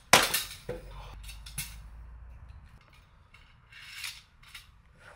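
An axe head on the end of a motorbike chain hitting a log with one loud, sharp chop just after the start and a smaller knock about half a second later, then the chain's metal links clinking and rattling a few times.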